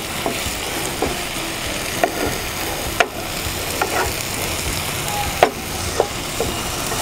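Diced potato and chopped tomato sizzling in a frying pan while a spoon stirs them, with short scrapes and taps of the spoon against the pan now and then.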